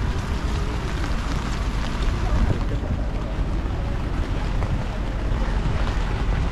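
Rainy city street ambience: a steady wash of rain noise with a heavy low rumble, and faint voices in the background.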